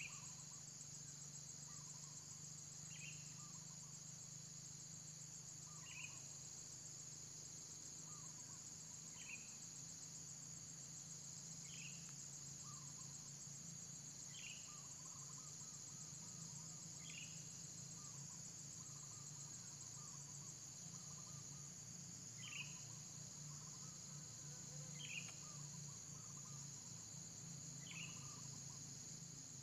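Faint, steady high-pitched insect chorus, with a short high chirp repeating about every three seconds.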